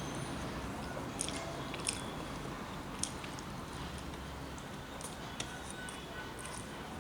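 A person chewing a mouthful of rice and soft vegetable curries, with scattered small wet mouth clicks over a steady background hiss.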